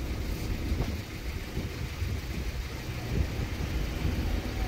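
Low, steady rumble of vehicles, with no bells ringing.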